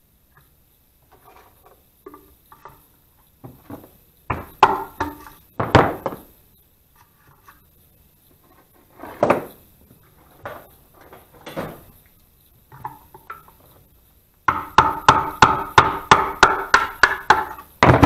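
Metal knocks and clanks of tools against the metal housing of a sump pump being taken apart. Near the end comes a quick, even run of sharp ringing taps, about four a second.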